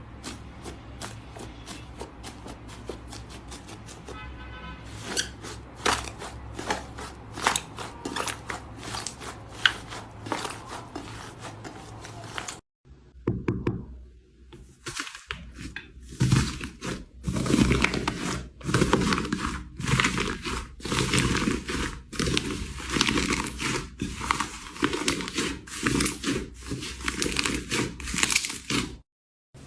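Slime being squished and stretched by hand, giving quick runs of sticky clicks and crackles. There is a brief break about 13 seconds in, after which the clicks come louder and more spaced out.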